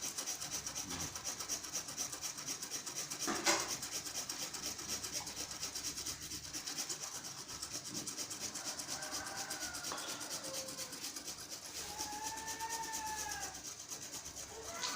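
Fresh herbal root being grated on a hand grater, in quick, even scraping strokes, several a second.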